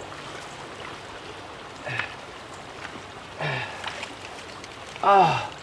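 A man's voice making excited exclamations: a brief grunt about two seconds in, a falling 'ohh' a little later, and a loud rising-and-falling 'wow' near the end, over a steady background hiss.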